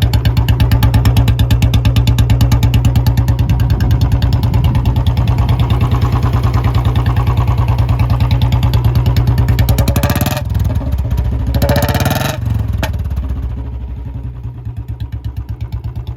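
Royal Enfield Bullet 350 single-cylinder engine, fuel-injected and fitted with an aftermarket silencer, idling with an even, steady thump. It is revved twice, briefly, at about ten and twelve seconds in, then settles back to a quieter idle.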